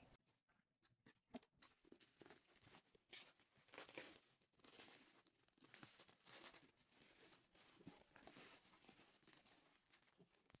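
Faint, irregular crinkling and tearing of plastic bubble wrap as it is cut with scissors and pulled open off a cardboard box.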